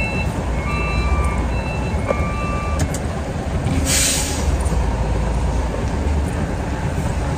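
Tractor unit's diesel engine running while reversing a trailer, with its reverse warning beeping in short repeated tones for the first few seconds. A short hiss of air comes about four seconds in, over the steady noise of rain.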